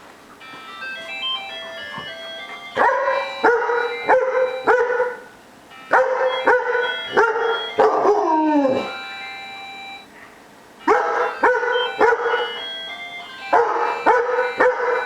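A cellphone alarm ringtone plays a tinkling tune while a German shepherd barks at it in four bursts of quick barks; one burst ends in a falling howl about eight seconds in.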